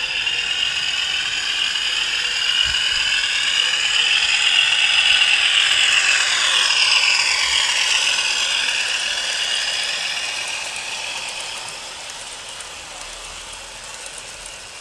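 OO-gauge Hornby Class 50 model diesel, fitted with a DCC sound chip, passing with its coaches: a mechanical whirring whine and clatter from the model train. It grows to its loudest about halfway through, sags in pitch as the train goes by, then fades away.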